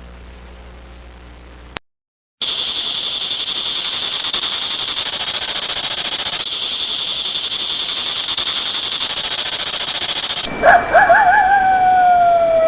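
A steady, dense high-pitched buzz of insects for about eight seconds, then, near the end, a rooster crowing: a wavering start that settles into one long note falling in pitch.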